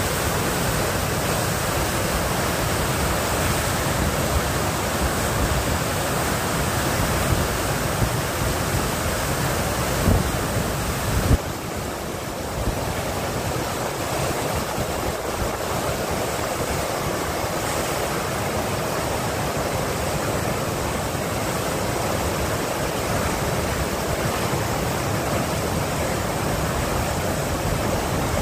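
Steady rush of whitewater from a standing river wave, fast water pouring over a ledge and breaking into foam. A few brief low thumps come about ten and eleven seconds in.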